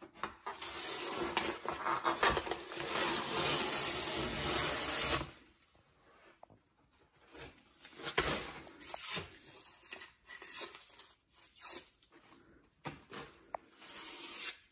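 Wallpaper being torn off a plaster wall by hand: a long continuous ripping pull for about five seconds, then short, broken tears and rustles of loose paper.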